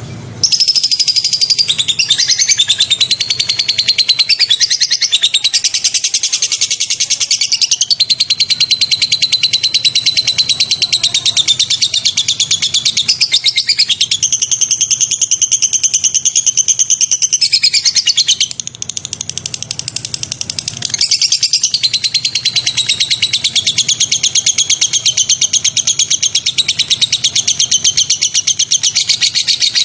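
Recorded caged-songbird chatter: a fast, dense, high-pitched trilling run of rapid repeated notes. It starts abruptly, dips quieter for a couple of seconds past the middle, then carries on.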